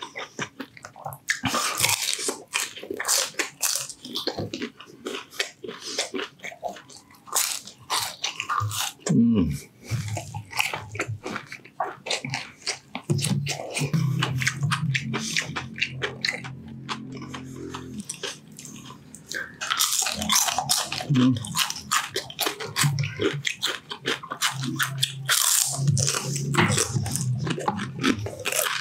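Close-up biting and crunching of crispy deep-fried pork intestine (chicharon bulaklak), with chewing between bites: a dense run of sharp crackly crunches.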